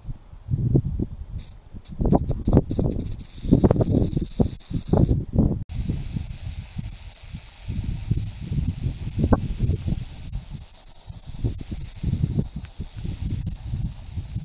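Rattlesnake shaking its tail rattle: a dry, high hissing buzz that cuts in and out in short spells over the first few seconds, then runs steadily from about six seconds in. Irregular low rumbling noise sits underneath.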